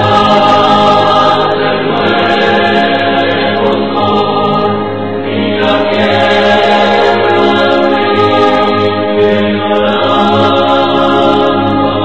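Background music: a choir singing held chords that change every few seconds.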